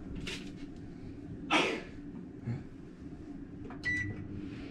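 Microwave oven's control panel giving a short single beep as a button is pressed, about four seconds in, after a few faint clicks. A short breathy noise is heard about a second and a half in, over low room hum.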